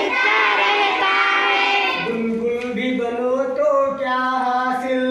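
A group of children singing an Urdu action song together in chorus, with long held notes in the second half.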